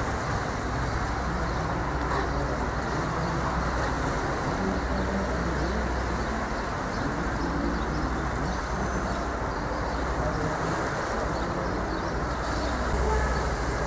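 Steady city traffic noise: a low, even road hum from passing cars.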